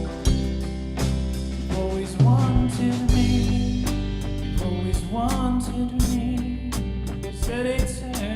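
Worship band music in an instrumental passage: guitar and bass over a steady drum kit beat, with a melody line that slides in pitch a few times.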